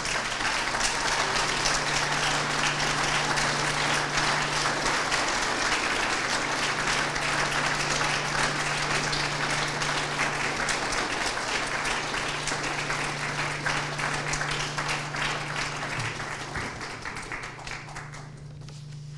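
Audience applauding: a roomful of people clapping steadily, then dying away near the end.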